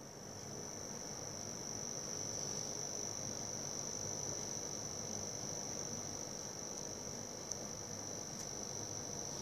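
Cooler Master V700 power supply giving off a steady high-pitched buzz over a faint hiss, growing louder over the first couple of seconds, with a small click about seven and a half seconds in. The buzz comes only while the PSU's fan is spinning and persists with the unit running alone on the paperclip test, which points to the power supply itself rather than the connected hardware.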